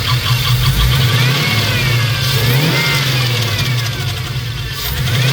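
GM 5.3 L LS V8 running steadily, with a wavering high squeak sliding up and down over the engine note. The engine is damaged: the noise came from failed cheap aftermarket lifters and lifter trays and a spun bearing.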